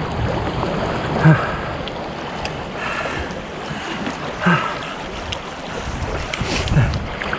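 Sea waves washing at the shore, with wind on the microphone; a few brief louder sounds stand out, the loudest about a second in.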